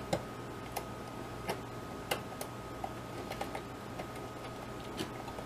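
Small irregular clicks and taps of wire ends and fingers working at a switching power supply's screw-terminal strip, about ten in all, over a faint steady hum.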